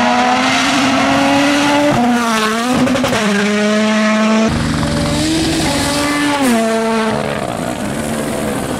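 Turbocharged four-cylinder rally car engine revving hard at full throttle on a gravel stage. Its pitch climbs and then drops sharply several times as it shifts gear and lifts off.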